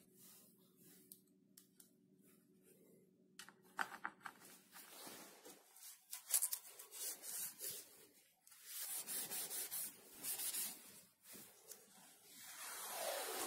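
Cloth rag rubbing over the aluminium cover of a lathe's DRO scale in short wiping strokes, after a few faint clicks of a hex key on its screws. A steady hiss swells up near the end.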